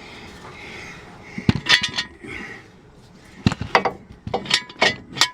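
Metal-on-metal clinks and knocks, some with a brief ring, as a truck's front driveshaft is shoved and worked into place: a few about a second and a half in, then a quicker run from about three and a half seconds to the end.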